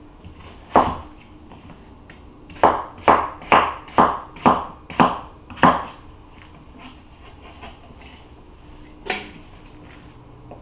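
Knife chopping a potato on a plastic cutting board: one chop, then a run of seven chops about two a second, and one more near the end.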